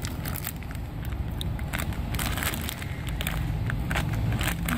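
Crinkling and crackling of a plastic spice packet being squeezed and shaken as red chilli powder pours out, with scattered irregular clicks over a low steady background rumble.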